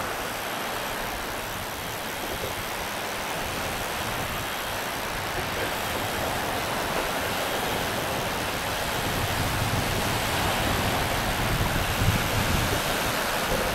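Small sea waves breaking and washing on a sandy beach: a steady rush of surf that swells louder a few seconds before the end.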